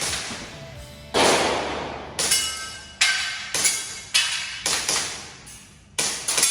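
Airsoft pistol firing a string of about eight shots, spaced irregularly half a second to a second apart. Each shot is a sharp crack that rings and fades for about half a second.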